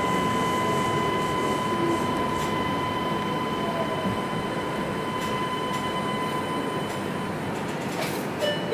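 Yokohama Seaside Line 2000 series rubber-tyred automated guideway train heard from inside the car as it slows into a station: a steady high inverter whine over rolling rumble. The whine dies away about seven seconds in as the train comes to a stop, with a few short clacks near the end.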